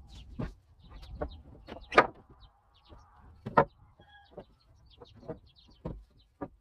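Irregular wooden knocks and taps from lumber being handled and set together for a run frame, the loudest about two and three and a half seconds in, with chickens clucking faintly.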